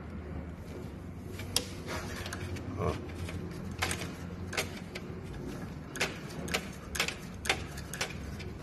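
Scattered sharp clicks and knocks of hands and tools on metal parts as a treadmill's motor and small drive belt are shifted into line, about eight over several seconds, over a steady low hum.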